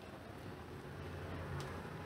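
Quiet room tone: a faint steady low hum, with one light tick about one and a half seconds in.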